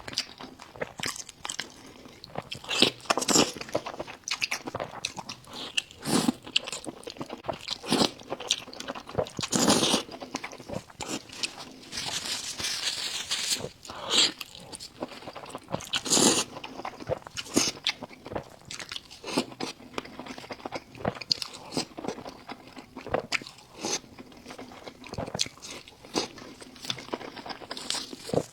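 A person biting and chewing crunchy food, with irregular crunches coming thick and fast and a few louder bites among them.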